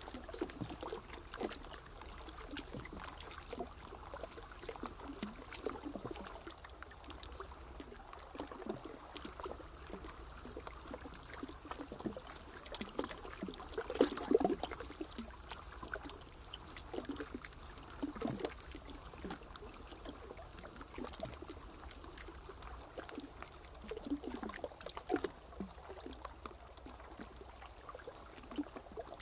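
Water lapping and trickling with irregular small splashes and light knocks, the loudest splash about halfway through.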